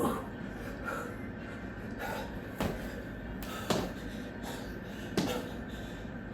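Thumps of a man doing burpees: four sharp knocks of hands and feet hitting the floor, spread a second or more apart, with hard breathing between them.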